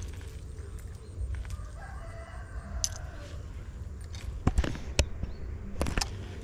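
A rooster crowing once, a drawn-out call of about two seconds, followed by a few sharp clicks in the second half.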